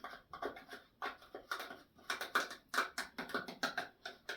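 A spoon scraping and tapping against a bowl as garlic paste is knocked off into a yogurt marinade: a quick, irregular run of short scrapes and taps.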